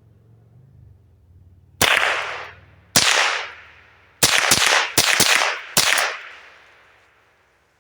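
Savage Model 62 semi-automatic .22 LR rifle firing about seven shots. The first two are about a second apart and the rest come in a quicker string. Each crack trails off in echo.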